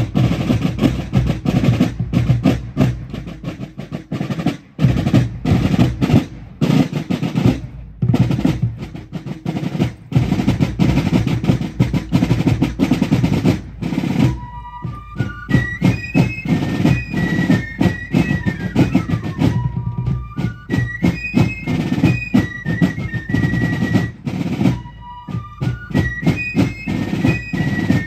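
Fife and drum corps playing on the march: the drums beat out a cadence with rolls alone for about the first half, then the fifes come in with a repeating tune over the drumming.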